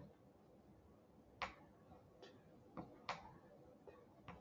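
About six faint, short clicks at uneven intervals as Morse code for the letter S is keyed into an Arduino translator's input.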